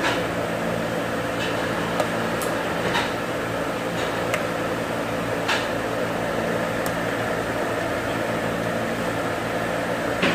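Steady hum of workshop machinery with a few light clicks scattered through it as the tailstock is adjusted.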